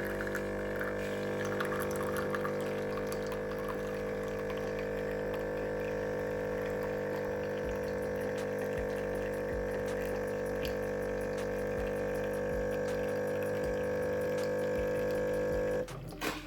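Jura ONO coffee machine's water pump running with a steady hum as water flows through the machine, cutting off abruptly near the end.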